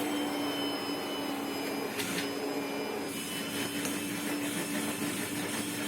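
Vacuum cleaner running steadily at high power, its nozzle sucking burr-like Kemuncup (Chrysopogon aciculatus) grass seeds off hanging fabric pants. There is a brief click about two seconds in.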